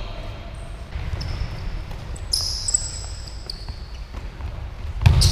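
Pickup basketball play on a hardwood gym floor: a ball bouncing and players' sneakers squeaking in short high chirps, with a louder thump near the end.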